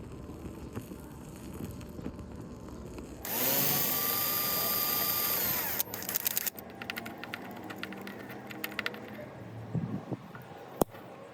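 An electric drill runs at a steady speed for about two and a half seconds, winding up at the start and down as it stops. It is followed by a rattle of small clicks and a sharp click near the end.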